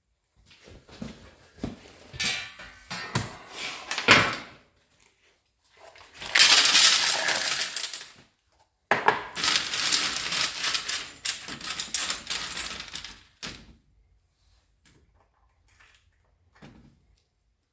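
Small metal parts clinking and scraping against each other on a workbench: a run of clicks and rattles, then two longer stretches of rasping metal-on-metal noise that stop abruptly.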